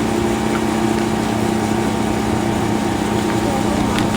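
A steady engine drone, an engine idling at a constant pitch.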